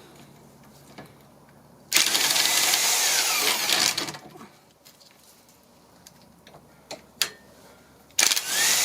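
Power tool with a 21 mm socket spinning the already-loosened nut off a stabilizer link bolt, in two runs of about two seconds each: one about two seconds in and another starting near the end, each with a sliding motor whine.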